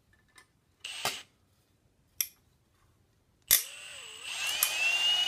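Milwaukee cordless drill drilling out a copper rivet in a steel plate: a couple of short trigger bursts, then from about three and a half seconds in a sharp click and a steady run with a whine that rises and dips.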